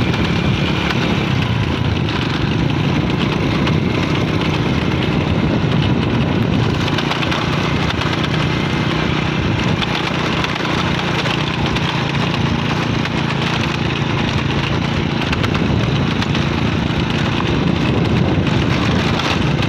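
A small motorcycle's engine running steadily under load while climbing a slope, with wind noise crackling on the microphone.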